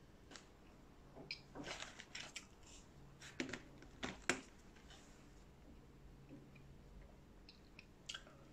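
Close-miked mouth sounds of eating McDonald's French fries: clusters of crisp clicks and crunches while chewing. Near the end comes a bite into a breaded chicken nugget.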